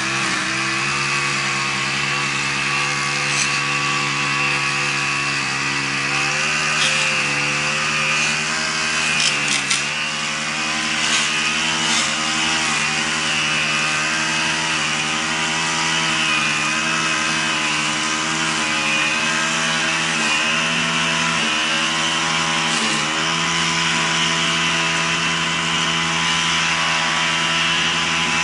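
Small gasoline engine of a lawn mower cutting thick, overgrown grass, running steadily. Its pitch dips briefly a few times as the engine bogs under the load of the tall grass.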